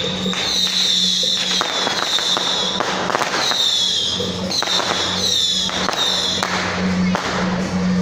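Firecrackers popping in quick irregular cracks over music, with high whistling tones that fall in pitch several times.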